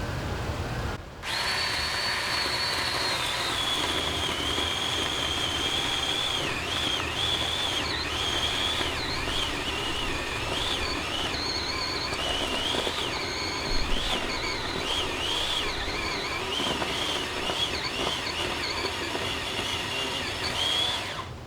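Ryobi 18-volt cordless 10-inch chainsaw running and cutting into a tree stump: a high electric-motor whine that starts about a second in, drops in pitch as the chain bites and keeps wavering and sagging under load.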